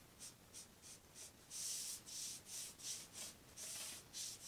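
Foam brush swishing stain onto a wooden board in quick, faint back-and-forth strokes, about two or three a second, a couple of them longer and drawn out.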